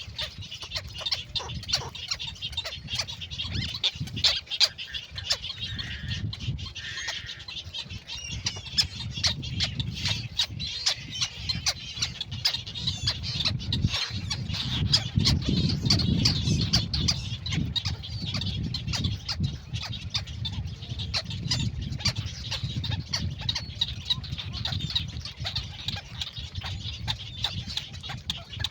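Birds calling, mixed with many sharp clicks and a low rumble that swells in the middle.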